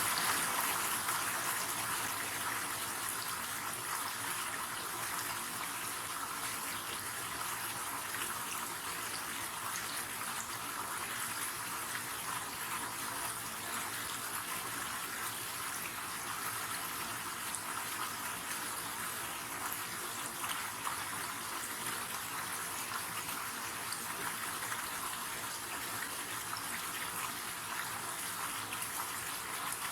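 River water flowing and rushing steadily, a continuous even hiss of running water.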